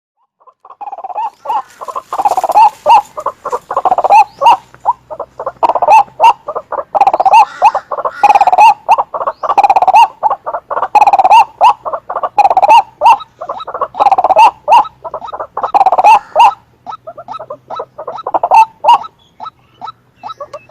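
White-breasted waterhen calling: a long run of repeated harsh notes in clusters a second or two apart, thinning out near the end.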